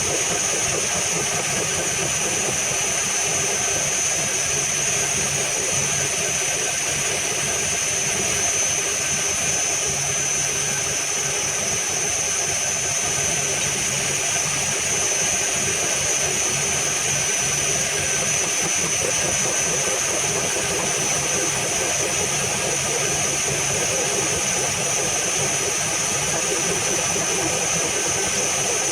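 Metalworking machine tool running steadily, its motor and drive giving a constant high whine over a low hum.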